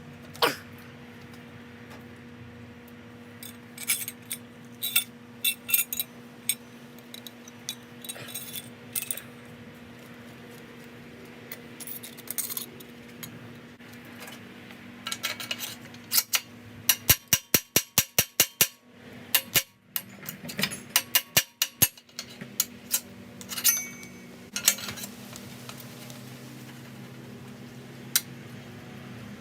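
Hand tools and metal bike parts clinking and tapping at irregular moments, with a rapid run of evenly spaced clicks, about seven a second for a couple of seconds, a little past the middle. A steady low hum runs behind.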